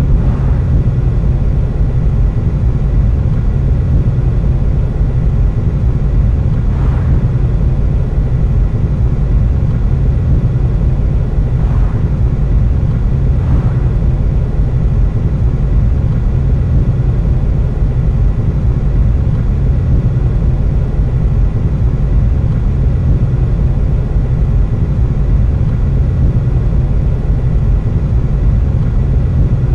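Steady low rumble of a car driving at road speed, heard from inside the cabin: engine, tyre and road noise.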